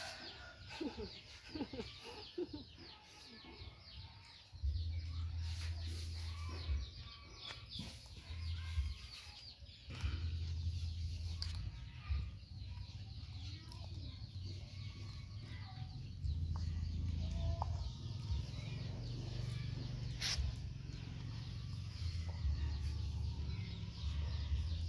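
Bird calls in the background, with a low rumble that comes and goes, first starting about five seconds in.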